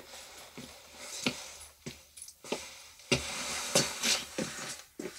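Foley footsteps played back through studio monitors, a steady walking pace of about one step every 0.6 s, over a steady hiss of background ambience.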